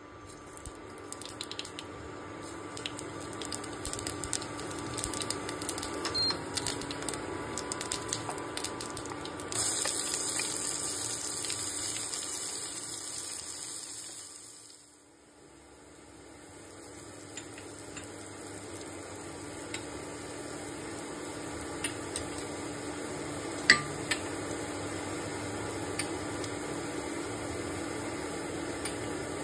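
Whole spice seeds sizzling in hot oil in a kadai, with many small crackles and pops. About ten seconds in, a louder, brighter hiss takes over for several seconds and then dies away. A steady frying sizzle follows, with one sharp clink of a utensil against the pan in the second half.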